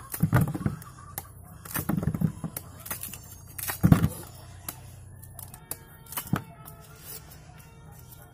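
Knife chopping through raw cassava (tapioca) roots in a bowl: a few heavy chops about two seconds apart, then lighter cuts.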